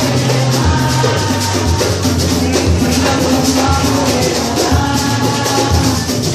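Batucada samba percussion ensemble playing: deep bass drums beat out a steady rhythm under a continuous wash of shakers.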